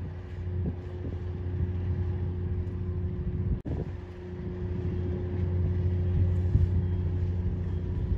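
Steady low engine drone with a faint constant hum above it, cutting out for an instant about three and a half seconds in.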